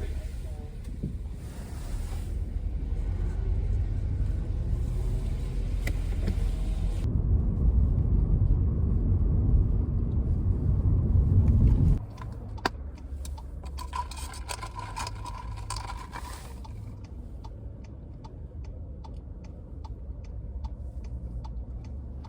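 Car cabin rumble from engine and road noise while driving, growing louder, then cutting abruptly to a quieter, idling-level rumble. Near the end a run of even ticks comes about twice a second.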